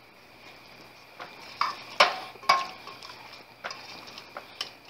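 A metal spoon knocking against an aluminium cooking pot as roasted cumin is tipped onto thick beef masala, the two loudest knocks about two seconds in and half a second apart. Near the end a spatula is stirring and scraping in the pot, over a faint steady hiss.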